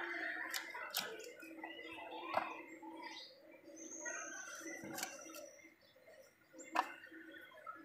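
A knife chopping raw chicken on a cutting board: a handful of sharp, irregularly spaced knocks.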